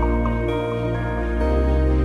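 Background music: soft sustained chords over a deep held bass, moving to a new chord about one and a half seconds in.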